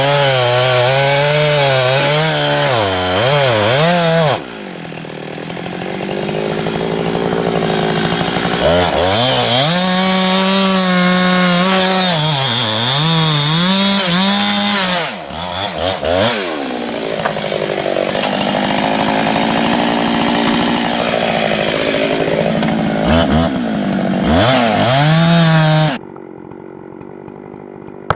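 Chainsaw engine cutting wood, its pitch repeatedly dipping as the chain bogs under load and rising again as it frees up. The sound changes abruptly a few times and cuts off near the end, leaving a low background.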